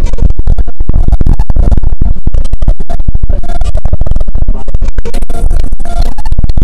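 Loud background music with heavy bass and a fast, dense beat.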